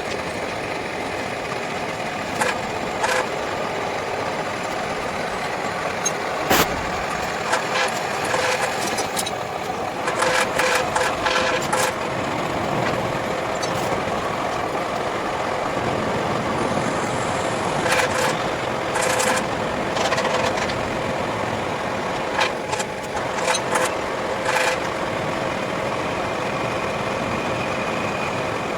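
A motor running steadily, with many short sharp clicks and knocks on top, bunched in a couple of busy spells.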